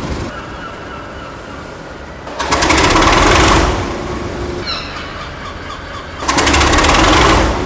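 Diesel locomotive engine running and rising in loud, rapid clattering surges, each about a second long, roughly every four seconds.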